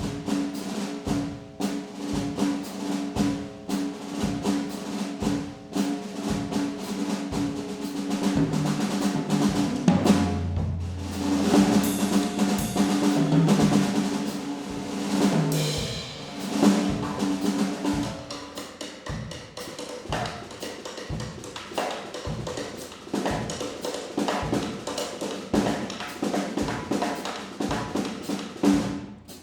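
Drum kit played in a steady, busy rhythm, with sustained low pitched notes sounding beneath the strikes. It grows louder and fuller from about ten seconds in, then eases back after about seventeen seconds.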